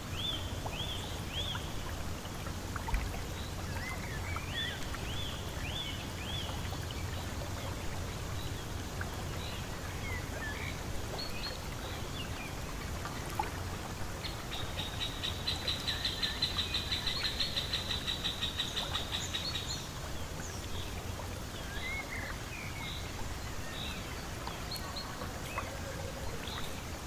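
Birds calling and singing, with many short high chirps and a rapid run of pulsing high notes that swells in the middle and then stops, over a steady low rumble; a single soft knock about three seconds in.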